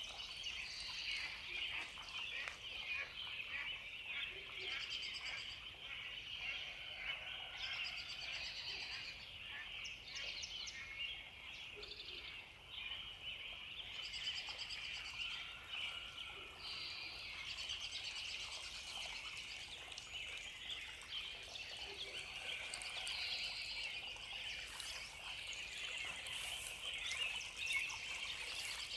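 Nature soundscape of birds calling: short high trills and chirps that come and go every second or two over a steady, dense high-pitched chorus.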